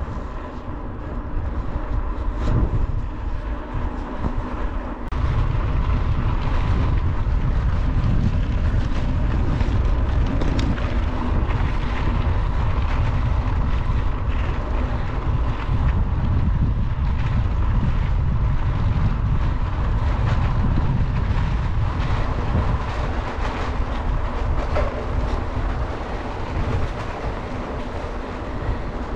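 Wind buffeting the microphone over the rumble and crackle of a bike's 2.25-inch WTB Ranger tyres rolling on a gravel road, louder from about five seconds in.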